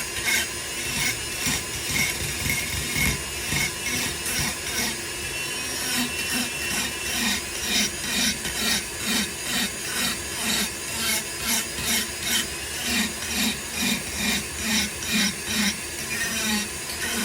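Foredom flexible-shaft rotary tool with a burr grinding into wood. Its motor whines steadily under rasping strokes, about two a second.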